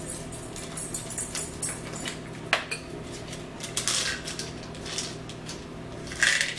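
Forks and spoons clinking and scraping against ceramic bowls at a meal, with scattered sharp clicks and a couple of louder rattling bursts as a small plastic bottle is handled and tipped.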